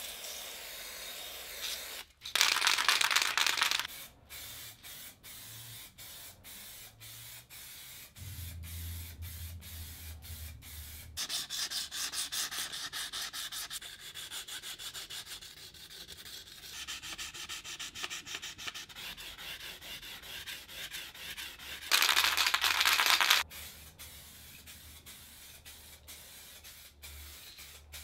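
Sandpaper rubbing by hand on a painted metal grater frame, in many short strokes. Two loud hissing bursts from an aerosol spray-paint can break in, one about two seconds in and another late on.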